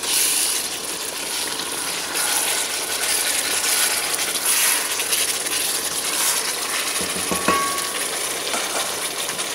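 Chicken pieces sizzling and bubbling in sauce in a pot on the stove, a steady crackling hiss, with a brief metallic clink about seven seconds in.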